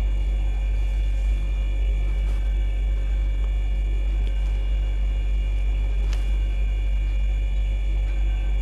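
A steady electrical hum with several high, steady whining tones over a deep low drone. A single sharp click comes about six seconds in.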